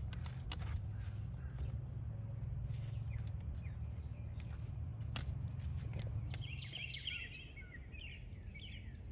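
Songbird singing a run of quick high chirps from about six seconds in, over a steady low rumble. A few sharp clicks sound earlier, the loudest about five seconds in.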